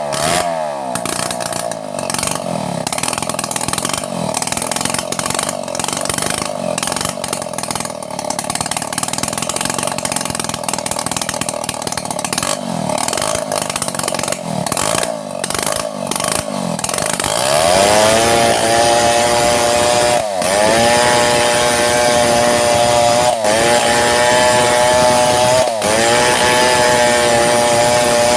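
Two-stroke chainsaw ripping lengthwise through mahogany, the engine running rough and uneven under load in the cut. About two-thirds of the way through it climbs to a steady high-revving whine, dipping briefly three times.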